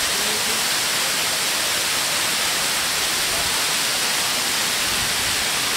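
Steady, unbroken rushing hiss of flowing water, with faint voices beneath it.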